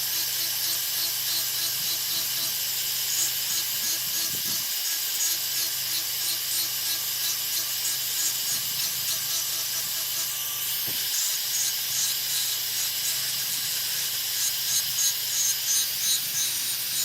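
Steady scratchy rubbing of an abrasive on a hard surface in quick, even repeated strokes, as in scrubbing rust off a part of an old electric fan.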